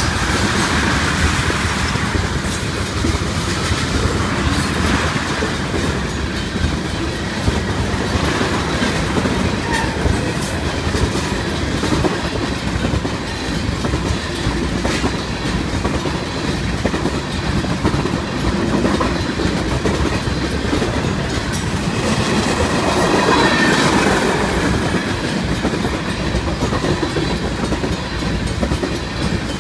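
Railroad tank cars of a freight train rolling past close by: a steady rumble of steel wheels on rail with repeated clacking as the wheels cross rail joints, swelling a little about two-thirds through.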